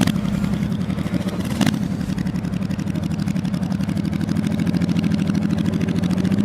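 1989 Honda Shadow 1100 V-twin motorcycle engine with Vance & Hines exhausts running at a steady, even speed, with a deep pulsing exhaust note. A brief sharp click about a second and a half in.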